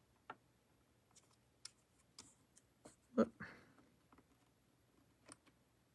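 Faint, scattered light taps and rustles of cardstock, tape and a thin metal die being handled and shifted on the plastic plate of a die-cutting machine.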